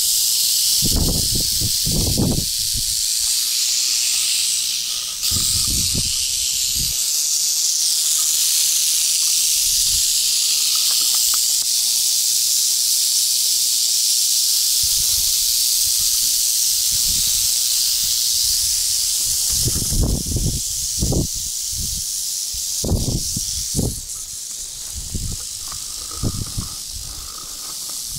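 Many prairie rattlesnakes rattling at once, a continuous high buzz that eases slightly near the end. Low thumps on the microphone come a few times.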